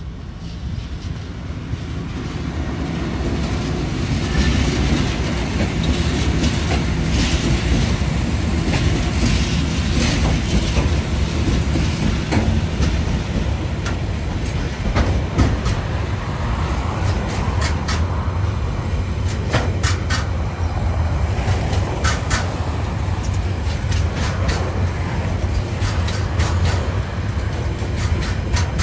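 TasRail TR-class diesel-electric locomotives hauling a container freight train past at close range, their engines rumbling, growing louder over the first few seconds. In the second half, container wagons roll by with steady wheel clickety-clack and sharp clicks every second or two.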